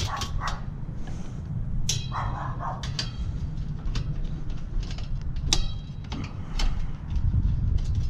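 Screwdriver clicking and scraping as it backs screws out of a sheet-metal blower housing, with a dog barking now and then.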